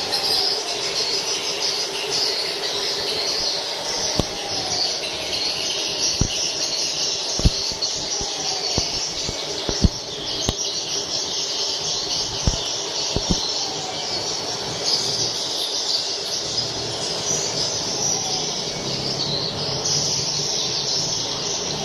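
Swiftlets twittering in a dense, continuous chorus of high chirps, with a steady low hum beneath and a handful of sharp clicks scattered through the middle.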